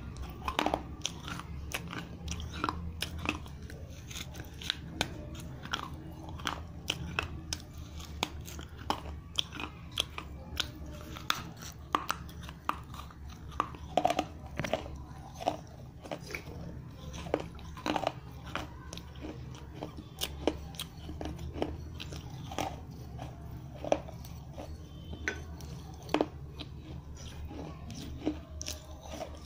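Pieces of baked clay pot crunched and chewed between the teeth: a continuous run of sharp, irregular crunches and clicks over a steady low hum.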